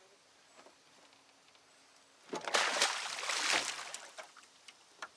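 Water splashing and sloshing for about two seconds, starting a little over two seconds in and fading away, beside a boat hull.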